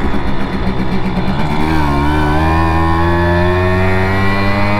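Simson moped's two-stroke engine running under way. About a second and a half in, the engine note dips, then climbs steadily as the moped accelerates.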